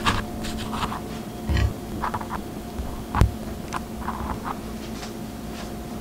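Kitchen knife slicing through a rolled, rice-filled wrap and knocking on the cutting board, cut after cut about once a second, the loudest knock about three seconds in.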